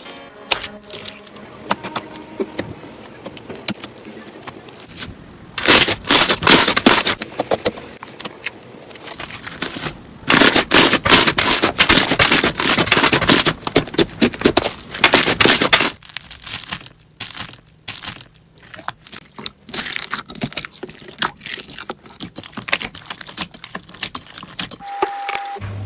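Slime being pressed and stretched by hand, giving a dense crackling and clicking, loudest in a spell about six seconds in and again from about ten to sixteen seconds in.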